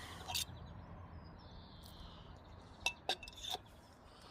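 Faint clinks and taps from a rain gauge being handled: one light click just after the start and three quick clicks about three seconds in.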